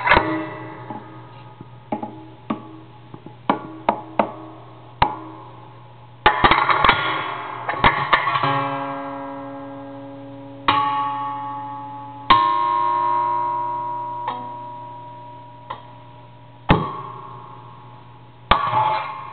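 Long steel wire loop of a homemade noise box struck with a rod, giving sharp metallic twangs and clicks at an uneven pace. A few strikes, about halfway through, ring out as guitar-like pitched tones that fade over several seconds.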